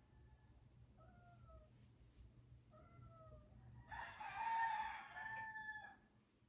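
A rooster crows about four seconds in, a rough, pitched call in two parts lasting about two seconds. Before it come two short calls that fall in pitch.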